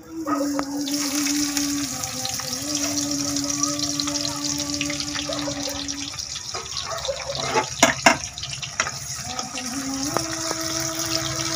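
Chopped onion, garlic, green chillies and mustard seed dropped into hot oil in an iron kadai, the oil sizzling steadily from just after the start as the tadka fries. A few sharp clacks of a metal spoon against the pan come about two-thirds of the way in, over a steady low hum.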